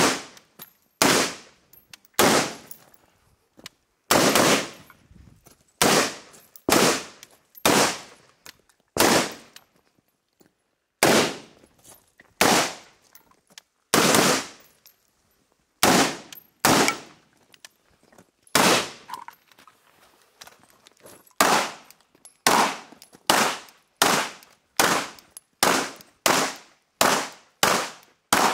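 Single shots fired in semi-automatic strings, about two dozen in all, each a sharp crack with a short echo. They come every half second to second and a half, with a few brief pauses, and quicken near the end. The first shots are from an AR-style carbine; a handgun fires toward the end.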